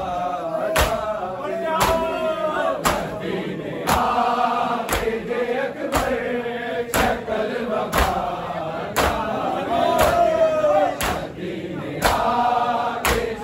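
Men chanting a noha together, with a crowd of mourners beating their chests in unison: a sharp slap about once a second under the singing.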